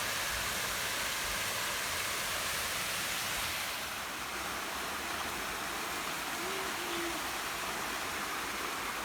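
Small waterfall, water rushing steadily with an even hiss, easing slightly about four seconds in.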